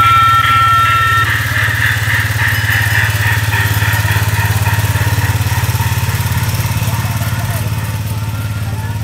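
Small engine of a barrel-train ride's towing vehicle running steadily at a low chug as it pulls the cars along. A steady high tone cuts off about a second in.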